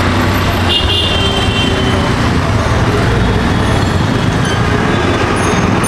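Loud, steady road traffic from a busy city street, with the engines of passing auto-rickshaws, buses and trucks running together in one continuous noise.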